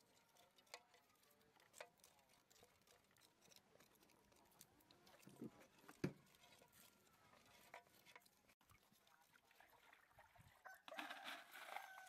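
Mostly quiet: a knife cutting a singed rat carcass in a metal pot of water, heard as a few soft clicks and taps, the strongest about six seconds in. Near the end comes a louder wet rustle as the carcass is lifted from the water, with faint chicken clucking in the background.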